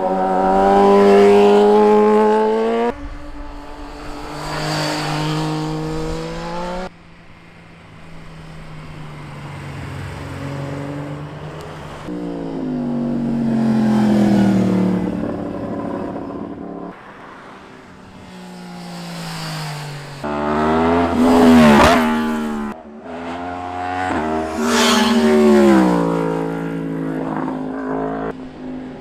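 Sport motorcycles passing one after another at speed, with engines revving and changing gear. Each bike's pitch rises and then drops as it goes by, and the loudest pass comes a little past two-thirds of the way in.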